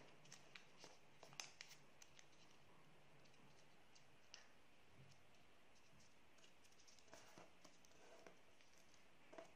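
Near silence with faint, scattered small clicks and rustles of fingers creasing a square sheet of origami paper.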